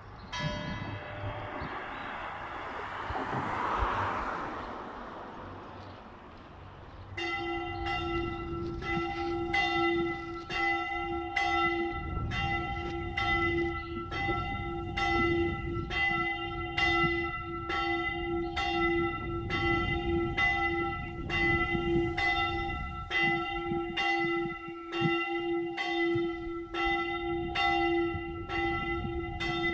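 A church bell dies away at first, under a rushing swell of noise that peaks about four seconds in. About seven seconds in a single bell starts swinging and rings steadily, roughly three strikes every two seconds, each strike leaving a long hum.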